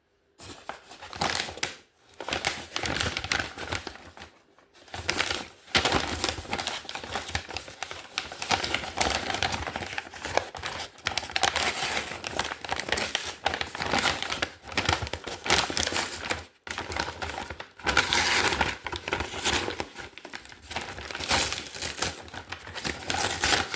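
Packaging crinkling and rustling as it is handled, in irregular handfuls with a few short pauses.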